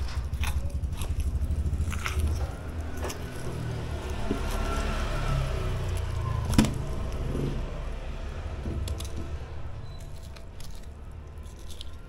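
Steady low rumble under scattered clicks and knocks from a knife and raw pork being handled while a leg joint is deboned; one sharper knock about six and a half seconds in.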